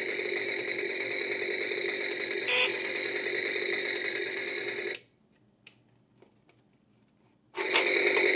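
Stihl toy chainsaw making its battery-powered engine sound, a steady buzzing drone. It cuts off abruptly about five seconds in, a few faint plastic clicks follow, then it starts again louder near the end.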